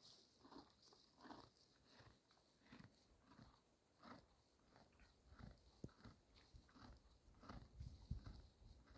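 Gotland ponies chewing hay: faint crunching bites in a steady rhythm of about two a second. Low thuds join in during the second half and grow louder near the end.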